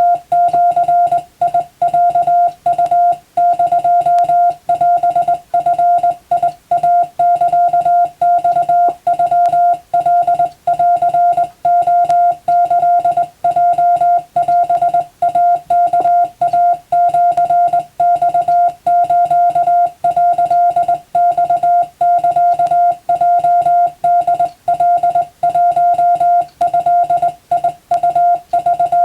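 Morse code (CW) sent as a single steady-pitched beep keyed rapidly on and off in short and long elements, a Japanese wabun telegram practice text for the radiotelegraph operator exam.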